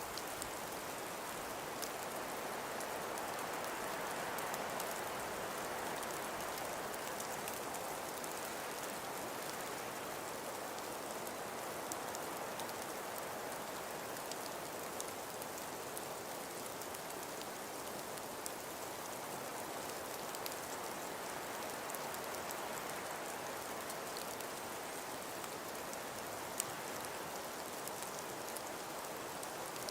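Wind blowing steadily with snow falling: an even hiss that swells and eases slowly, with faint scattered ticks.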